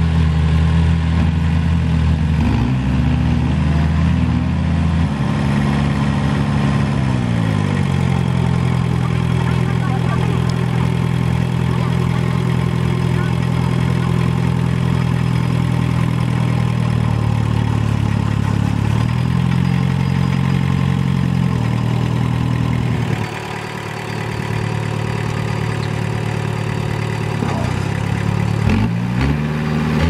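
Small crawler bulldozer's diesel engine running under work, its speed dropping about a quarter of the way in, picking up again past the middle, easing off about three quarters through, and revving up again near the end.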